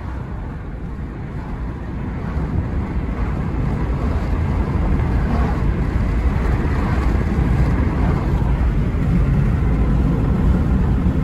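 Steady low rumble of road and wind noise from a moving car, growing louder over the first several seconds and then holding steady.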